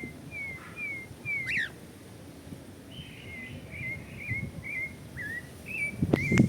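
A songbird singing a run of short whistled notes, each sliding down in pitch, with one quick rising note about a second and a half in. Near the end, sharp knocks and a louder rumbling noise break in.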